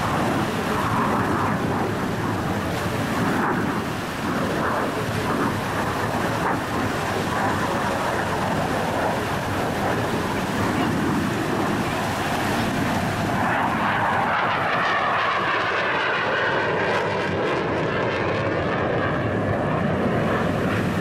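Saab 35 Draken jet fighter's afterburning turbojet roaring steadily through a display pass, with the afterburner lit by the end. About two-thirds of the way in, the noise takes on a sweeping, wavering tone as the jet passes.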